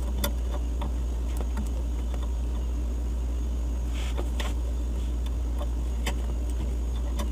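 Steady low hum of a refrigerator's sealed compressor, with a few light scattered clicks from hands handling the piercing valve clamped on the copper suction line.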